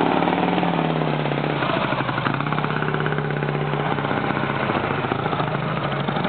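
Vincent motorcycle engine idling steadily, its note settling slightly lower about a second and a half in.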